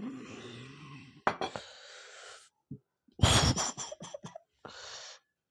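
A man breathing out hard and gasping after downing neat vodka, with long breathy exhales and a loud, sharp burst of breath a little after three seconds in. A couple of light knocks come a little over a second in.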